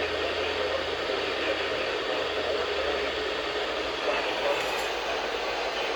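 Steady hiss of radio static from a weather radio receiver.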